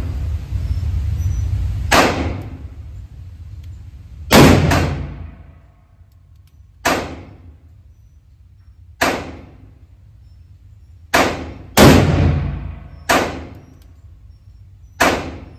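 Gunshots at an indoor range, a Ruger Redhawk .44 Magnum revolver fired double action: about nine sharp reports a second or two apart, each ringing off in echo. The two loudest come about four and twelve seconds in.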